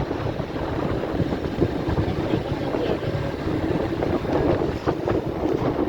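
Steady wind rushing over the microphone with engine and road noise from a moving vehicle.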